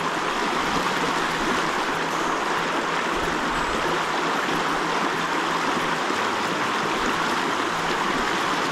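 Small, shallow stream running over stones through a riffle: a steady rush of water.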